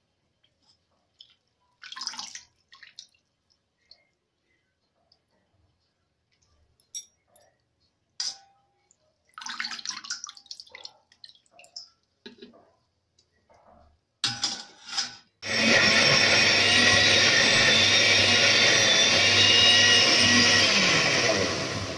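Scattered splashes and clinks as blanched spinach is lifted out of a bowl of water with a spoon into a blender jar. About fifteen seconds in, an electric blender starts and runs steadily, puréeing the spinach, and stops just before the end.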